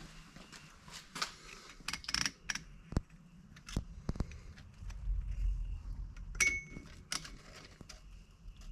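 Scattered metallic clicks, taps and clanks of hand tools and engine parts being handled, one of them ringing briefly about six and a half seconds in.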